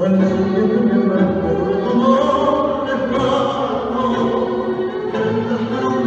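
Tango music playing for the dancers, a continuous melody of long held notes.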